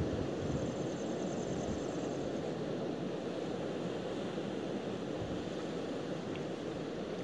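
Steady wash of sea surf on a rocky shore, a continuous low rushing noise.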